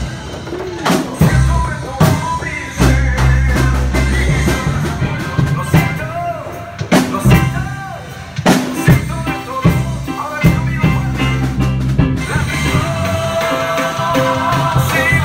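A live band playing loud: electric bass guitar, electronic keyboard and drums, with a deep bass line under frequent drum hits.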